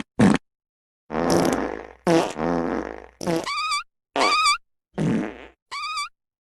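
A string of about seven separate fart sounds, one after another with dead silence between them. Some are low and rasping; others have a wavering pitched tone.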